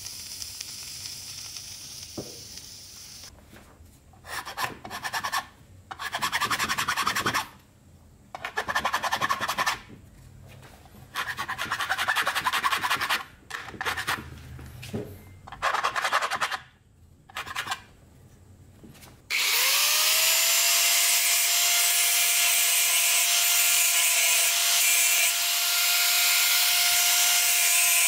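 Hand file rasping across the metal housing of a Makita 5012B electric chainsaw, in strokes of about a second with pauses between. About two-thirds of the way through, an angle grinder starts with a rising whine and then runs steadily, grinding the housing by the end.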